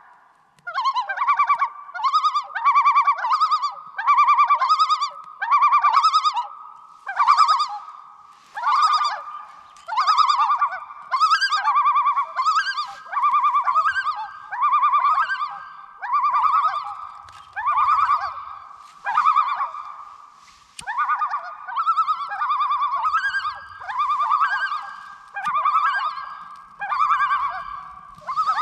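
Birds calling: a long series of repeated, wavering calls, about one a second. Near the end two birds call together, their calls overlapping.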